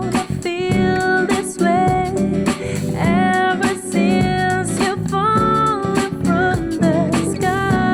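Background music: a song with singing and guitar over a steady beat.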